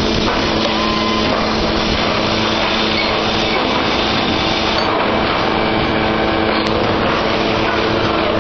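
Brick-plant machinery running: a steady, loud mechanical din with a constant low hum under it.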